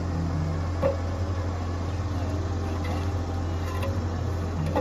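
An engine running steadily with a low hum, and a single sharp knock about a second in.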